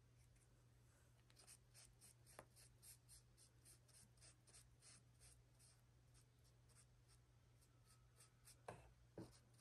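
Paintbrush stroking coloring-book paper, laying on ink in faint, short brushing strokes about two to three a second. Two soft knocks near the end.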